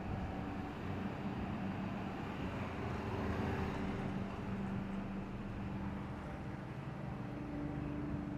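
Steady engine drone with a low rumble and a held hum, easing off a little near the end.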